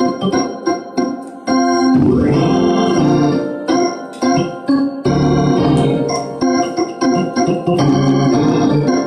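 Hammond-style two-manual organ played in short, chopped chords with a steady rhythm. Chords are held longer about two seconds in and again from about five to seven and a half seconds.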